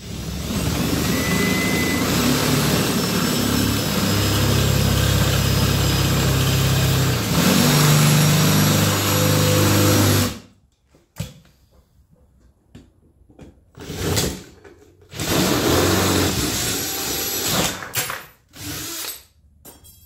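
Cordless drill with a 3/8-inch bit running steadily for about ten seconds as it bores out a hole in a steel door-latch cover plate, with a change in pitch partway through. It then stops, and several shorter bursts and knocks follow.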